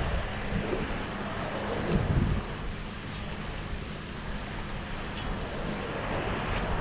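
Wind buffeting the microphone over the steady wash of surf, with a constant low hum underneath and a couple of louder gusts about two seconds in.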